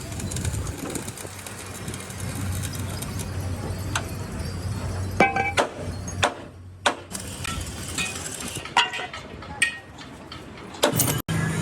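A series of sharp metallic clanks, each ringing briefly, over a steady low hum: metal being struck in a workshop.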